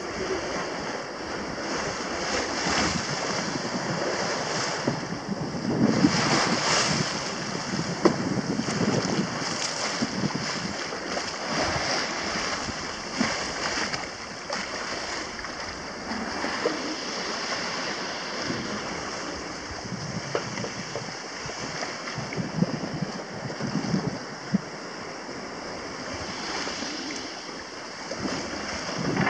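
Sea water rushing and splashing along the hull of a sailing yacht under way, with wind over the microphone, the noise swelling and easing in surges.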